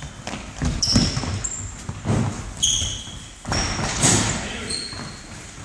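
Indoor football game on a wooden sports-hall floor: the ball thudding as it is kicked and bounces, and shoes squeaking in short, high chirps several times as players turn and stop.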